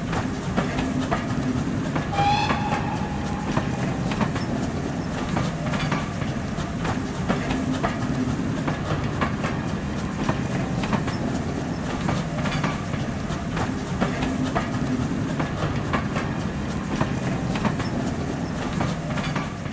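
A passenger train running past, its wheels clicking over the rail joints over a steady running noise, with a brief squeal about two seconds in.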